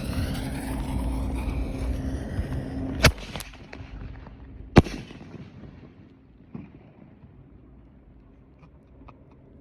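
Nishiki Blast aerial firework going off: a loud hiss as it goes up, then two sharp bangs about a second and a half apart, the second the loudest. A faint pop follows.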